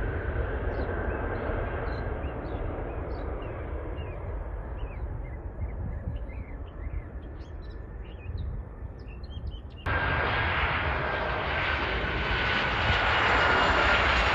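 Distant jet airliner taking off, its engine noise slowly fading as it climbs away, with small birds chirping. About ten seconds in, a sudden cut to a louder, close-up Southwest Boeing 737 on landing approach, its engines running with a steady high whine over the jet noise.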